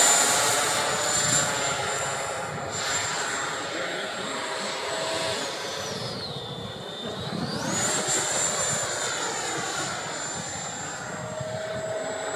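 Electric ducted fan of an FMS F-16 RC jet whining in flight. Its pitch sweeps down about six seconds in and climbs back up about two seconds later, as the fan's speed drops and recovers with the throttle.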